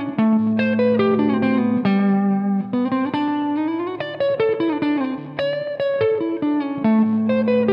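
Canalli baritone Telecaster-style electric guitar being played: picked single notes and low chords, with a note sliding up in pitch about three seconds in.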